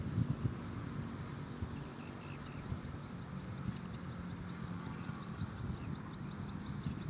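Outdoor farm ambience: short high chirps repeating in pairs, coming quicker near the end, over low rustling and crackling noise.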